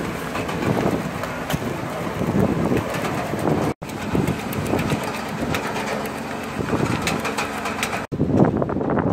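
Truck-mounted roofing conveyor running: a steady engine drone with chain rattle and many small clicks, and wind buffeting the microphone. The sound cuts off sharply twice, a little under 4 seconds in and about 8 seconds in.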